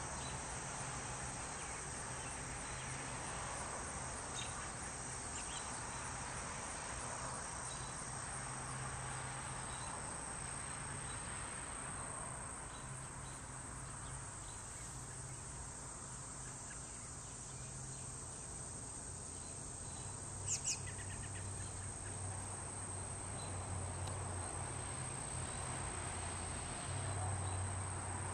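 A steady, high-pitched chorus of singing insects trilling without pause, over a faint low hum. Two quick clicks sound about twenty seconds in.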